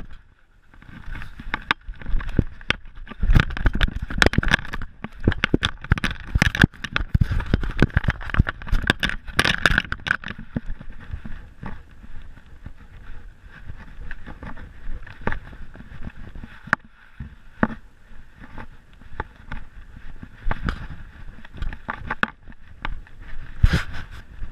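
Handling noise from a GoPro worn by a moving dog: irregular knocks, scrapes and rubbing as fur and harness brush against the camera housing, thickest in the first half and sparser later.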